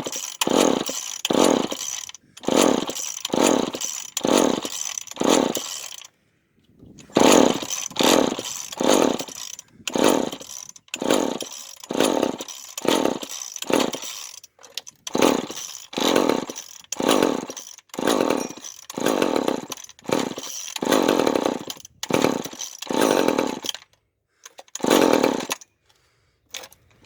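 Old two-stroke chainsaw engine running on gas poured down its carburetor, surging unevenly in bursts about twice a second with brief drops between. It falters for about a second some six seconds in, then picks up again and stops near the end, starved of fuel, which is not getting up into the carburetor.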